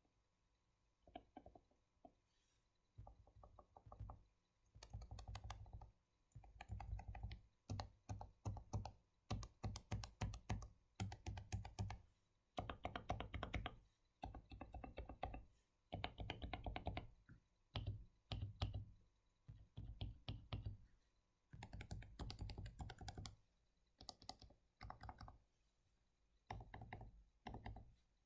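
Typing on a Leopold FC660C with Topre switches, lubed sliders and springs, and Keyclack silencing rings: muted, thocky keystrokes in bursts of a second or two with short pauses between, a few scattered presses at first. Each keystroke carries a deep thud from the hollow desk beneath.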